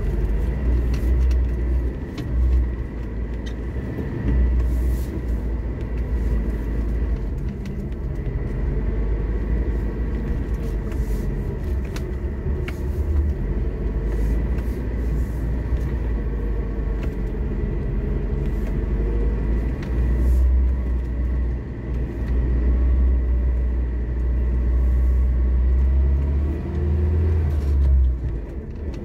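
Lada Niva driving through snow, heard from inside: a steady low engine and tyre rumble, with the engine note slowly rising and falling.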